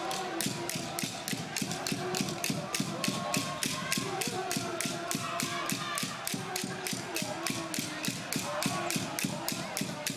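Rhythmic cheering from spectators: a fast, even beat of claps or clappers, about four to five a second, with held chanting voices over it.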